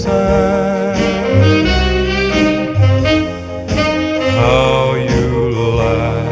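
Background music: a wavering lead melody over a bass line.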